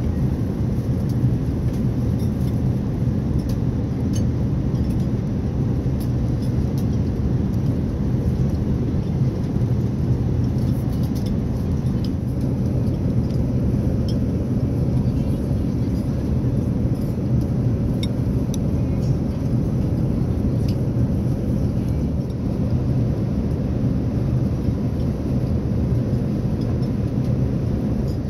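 Steady low drone of an Airbus A380's passenger cabin in flight, the airflow and engine noise heard from a seat, with a few faint light clicks now and then.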